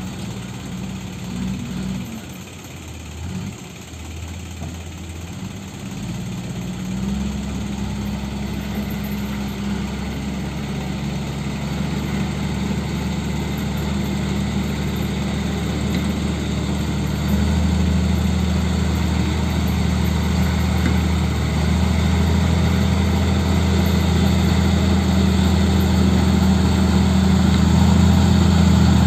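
Heavy diesel engines of a mud-bogged Mitsubishi dump truck and a crawler bulldozer at its rear, running steadily and growing louder, with a deeper, stronger engine note joining about two-thirds of the way through.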